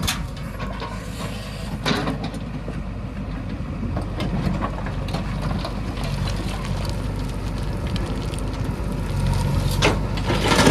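Heavy diesel engine running steadily at low revs, with a sharp knock about two seconds in and another near the end.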